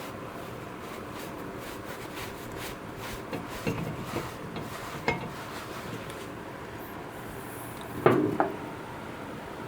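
Light clinks and knocks of hard objects being handled and set down, a few between about three and five seconds in and a louder double knock about eight seconds in, over a steady low background hum.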